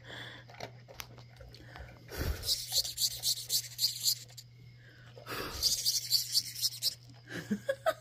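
California root borer beetle stridulating: two bouts of rhythmic rasping, each about two seconds long, pulsing about five times a second.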